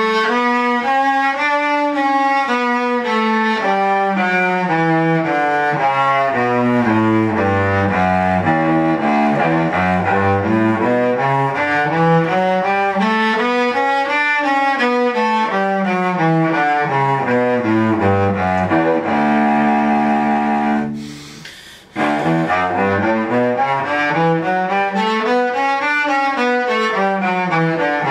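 Cello playing a two-octave D major scale, each note split into several quick separate bow strokes. It runs down to the low D, back up two octaves and down again. The bottom note is held briefly, then comes a short break about three-quarters of the way through before the scale starts climbing again.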